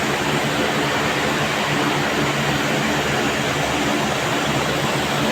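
Running cooling tower: a steady rush of water falling through it, with a low steady hum underneath.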